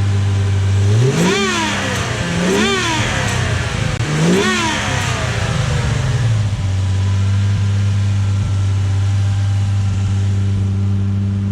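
Car engine with a dead turbocharger idling, then revved three times in quick succession, about one, two and a half and four and a half seconds in. Each rev rises and falls back, and the engine settles back to a steady idle about six and a half seconds in.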